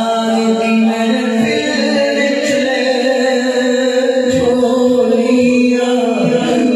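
A man singing a naat without instruments, drawing out long, steadily held notes.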